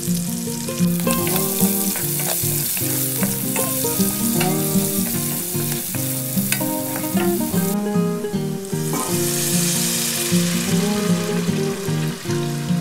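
Garlic, red onion and chili flakes sizzling in hot oil in a stainless steel pan, stirred with a wooden spatula, over background music. The sizzle drops away briefly about eight seconds in, then comes back.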